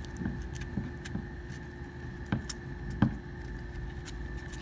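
Hands pressing and rubbing adhesive grip panels onto a Glock 19's polymer frame: light scattered handling clicks and rubs, with two sharper taps, one a little after two seconds in and one about three seconds in, over a steady faint background hum.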